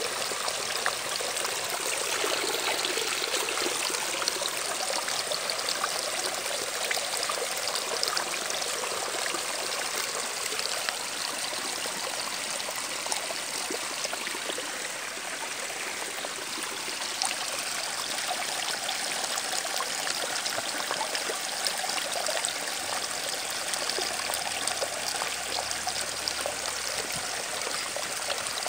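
Steady rushing and trickling of running water, even and unbroken.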